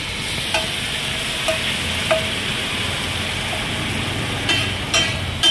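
Chopped masala sizzling in oil and water on a large flat iron tawa, with a steel spatula scraping and knocking against the pan about once a second, some knocks briefly ringing.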